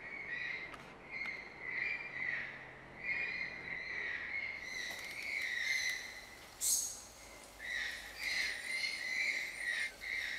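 Forest ambience of insects and birds calling: a shrill call wavers around one high pitch in pulses, with a short very high chirp about two-thirds of the way through.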